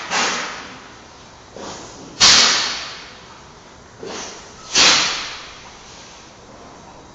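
Giant panda sneezing: two loud, sharp bursts of breath about two and a half seconds apart, each following a shorter, softer puff, with the tail of an earlier sneeze fading right at the start.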